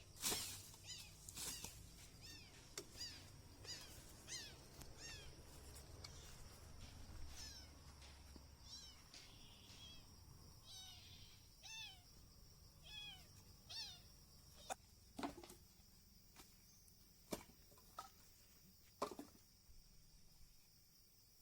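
An animal calling over and over in short, arching, mew-like cries: many close together at first, then sparser and lower. A few sharp clicks come in the second half, over a faint steady high hiss.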